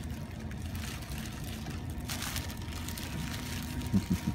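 Steady low background rumble of the room, with a brief rustle about two seconds in and a few short low bumps near the end.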